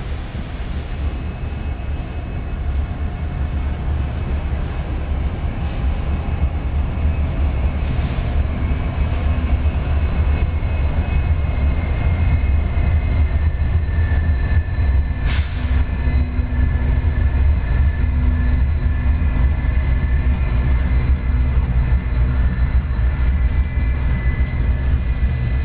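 A freight train passing close by: a heavy low rumble of wheels on rail that grows louder as Union Pacific diesel locomotives come past, with thin high steady tones over it. A single sharp knock sounds about fifteen seconds in.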